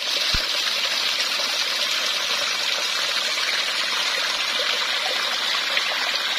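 Shallow rocky stream with water tumbling over stones in a small cascade, a steady rush of water.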